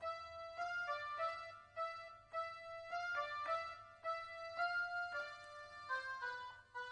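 Instrumental background music: a melody of short, separately struck notes.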